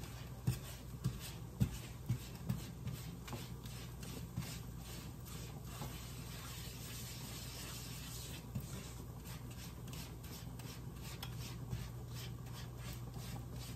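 Silicone spatula stirring and scraping a butter-and-flour roux across the bottom of a nonstick frying pan, in repeated strokes about two a second, as the roux cooks to take out the raw flour taste.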